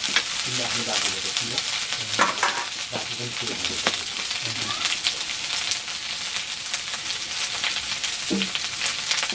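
Dry meat sizzling as it fries in a black iron wok over a wood fire, with scattered scrapes and clinks of a metal ladle stirring it.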